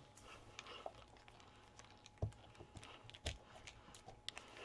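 Faint handling sounds of hands pressing an acrylic block onto a Bible page: scattered light ticks, with two soft knocks about two and three seconds in.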